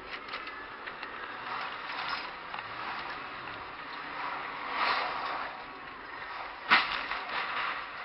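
Driving noise from a car's dashcam, with a sudden loud bang about two-thirds of the way through, followed by about a second of clattering.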